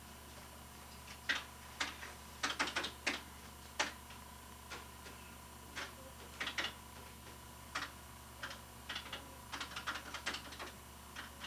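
Cash register keys being punched, irregular mechanical clicks, some in quick runs, as prices are rung up.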